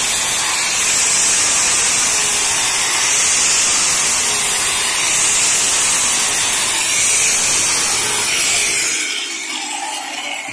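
Angle grinder with a sanding pad and a worn, reused sandpaper disc sanding old paint off a wooden panel, its sound swelling and easing about every two seconds. Near the end it is lifted off the wood and winds down.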